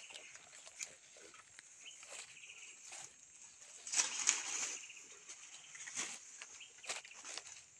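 Footsteps and rustling through tall grass and dry banana leaves, a run of short crackles, with a louder rustle of leaves about four seconds in as the banana plant is handled.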